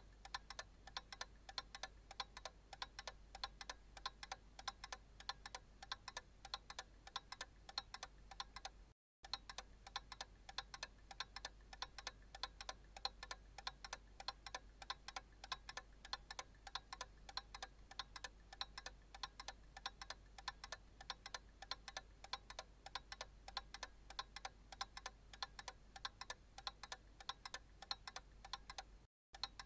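Analog clock ticking in a fast, even run of clicks. The ticking cuts out completely for a moment twice, about nine seconds in and near the end.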